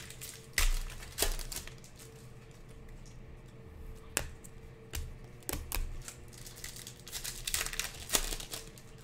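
Panini Prizm basketball cards being flipped through and sorted by hand: irregular sharp flicks and clicks of card stock, with some crinkling of a pack wrapper. The clicks are loudest about half a second and a second in, with a busier run around eight seconds in, over a faint steady hum.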